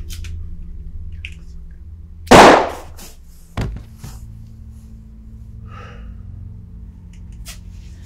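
A single loud, sharp impact about two seconds in, dying away over about half a second, followed a second later by a lighter click, over a low steady hum.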